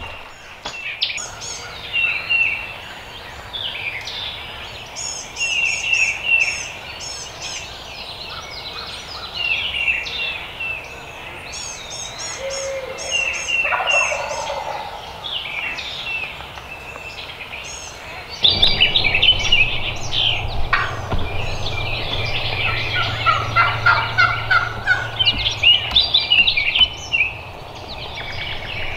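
A wild turkey gobbling, its rapid rattling calls standing out among many songbird chirps and calls.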